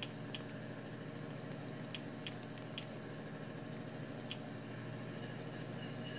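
Sharp, short clicks at irregular intervals, about seven in all, from remote control buttons being pressed to scroll a menu, over a steady low hum in the room.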